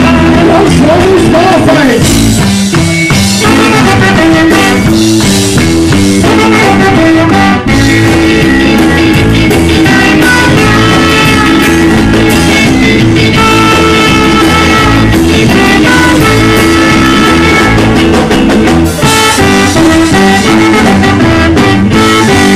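Live band playing loud, with horns (trombone and trumpet) over electric bass, guitar and drum kit, and a brief stop about a third of the way in.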